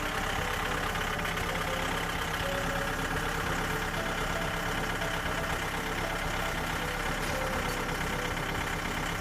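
Small gas engine of a Frontier OS27 portable bandsaw mill running steadily.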